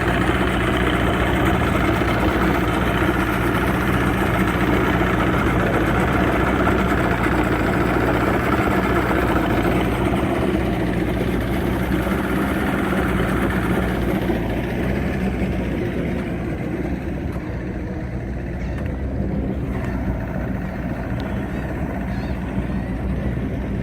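Boat motor running steadily with a low hum, under a broad rushing noise of wind and water that fades away about halfway through.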